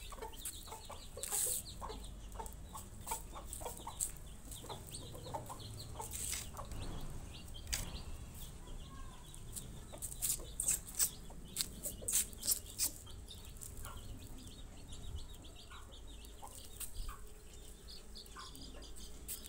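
Aseel chickens clucking in short low calls, mixed with many sharp clicks and ticks that come thickest in a run about ten to thirteen seconds in.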